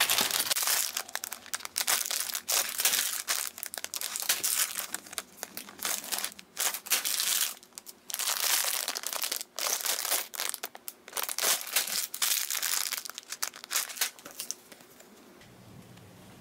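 Clear plastic bags of building-brick parts crinkling as they are handled, on and off, stopping about a second before the end.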